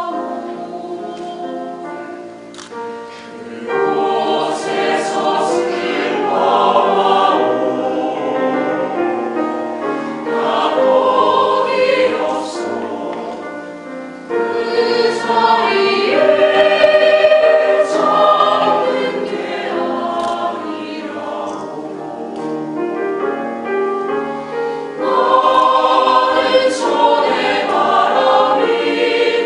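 Mixed choir of women's and men's voices singing a slow Korean choral song in harmony, growing louder about 4 seconds in, again near the middle, and again near the end, with softer passages between.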